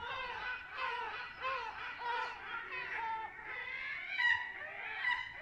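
Several gulls calling over and over, a run of bending, plaintive calls about two a second that overlap at different pitches, with the loudest call about four seconds in.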